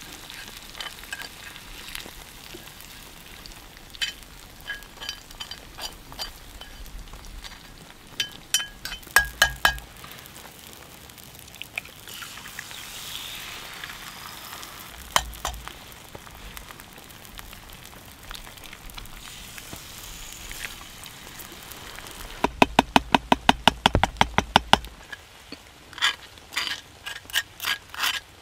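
Food sizzling in a cast iron skillet while a metal utensil clinks and scrapes against the pan, with a quick run of even taps, about six a second, lasting a couple of seconds near the end.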